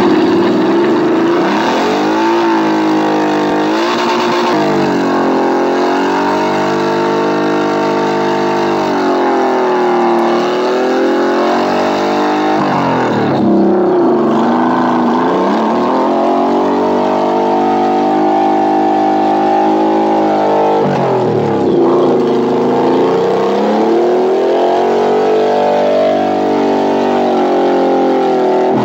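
A cruiser motorcycle's engine revving hard and held at high revs while the rear tire spins in a smoking burnout, the pitch sagging and climbing back up several times.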